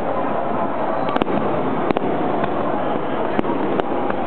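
Aerial firework shells bursting: several sharp bangs, the loudest a little over a second in, over a steady background din.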